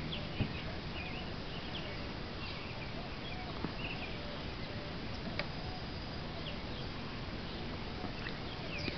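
Open-air lakeside ambience: scattered short bird chirps over a steady background hiss, with one soft knock about half a second in.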